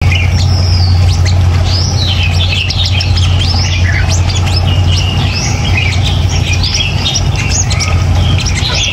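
Sunbirds calling in rapid, high chirps and twitters around a hanging wire trap cage, a wild bird at the outside and another inside. A steady low hum runs underneath.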